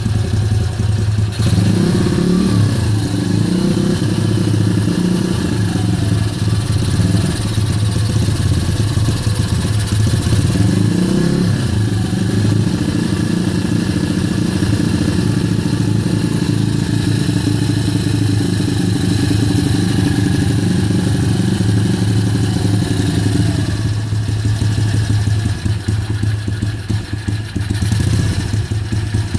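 Kayo YX140 pit bike's single-cylinder four-stroke engine running with the throttle held steady, its revs swinging up and down on their own a couple of times in the first dozen seconds. This is the hunting or floating rev fault the owner is showing, which he also describes as the engine coughing.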